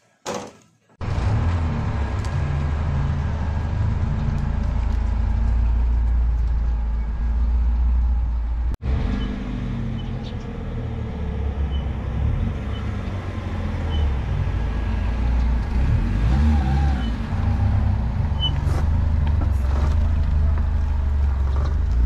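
A car's rear hatch thuds shut near the start, then a small hatchback's engine runs steadily, its sound sitting low in pitch, with a brief break about nine seconds in.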